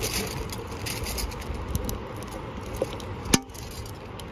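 Boiling water pouring from a metal stovetop kettle into a thermal carafe, a steady splashing stream, then a single sharp knock a little over three seconds in as the kettle is set back down on the camp stove.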